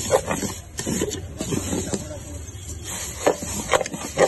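A wooden spatula stirring and scraping dry rice vermicelli as it fries in oil in a metal pot: irregular scrapes and knocks, several times, over a steady high sizzling hiss.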